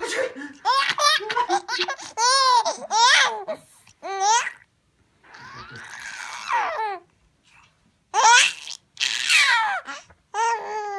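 Baby laughing in a run of high-pitched bursts and squeals, with a pause midway and then more bursts, set off by fake sneezing.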